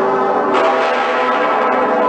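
Cologne Cathedral's St. Peter's Bell and Pretiosa swinging and ringing together: a dense mass of overlapping, sustained bell tones, with a fresh clapper strike about half a second in.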